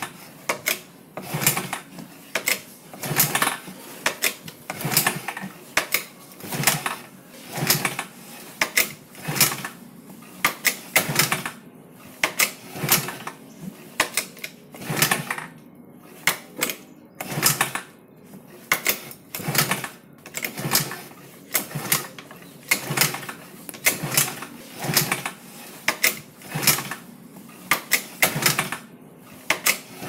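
Scooter kick-starter being cranked over and over: each kick is a quick run of sharp mechanical clicks, coming about every one and a half to two seconds.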